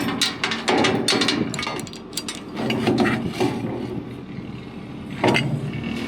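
Repeated metal clanks and rattles from handling steel, over an engine idling steadily.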